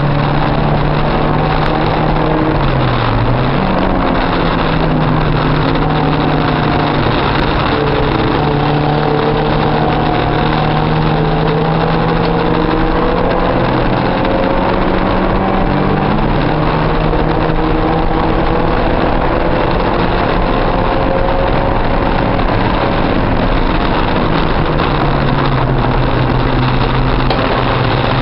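Porsche 944's four-cylinder engine running hard, heard from inside the race car's cabin over steady road and wind noise. The engine note dips briefly about three seconds in, then climbs slowly, steps up again past the middle, and drops near the end.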